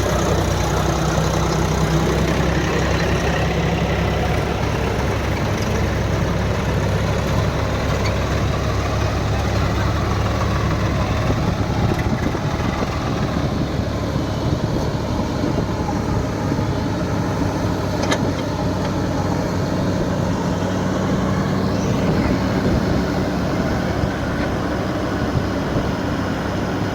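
Heavy diesel engine of a tractor or backhoe loader running steadily at a constant speed.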